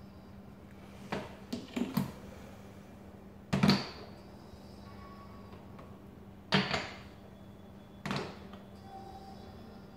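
Small cosmetic jars being lifted from and set back down on a display stand: a series of sharp knocks and clicks, the loudest about four seconds in and another near seven seconds, over a faint steady hum.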